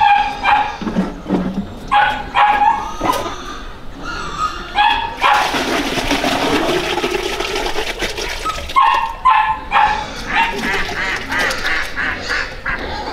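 Dogs whining and yipping in clusters of short, high-pitched cries. In the middle there are a few seconds of rushing noise.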